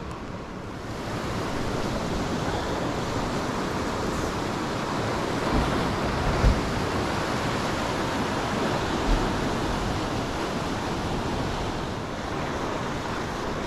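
Ocean surf washing over and breaking around shoreline rocks, a steady rushing wash, with a few brief low thumps in the middle.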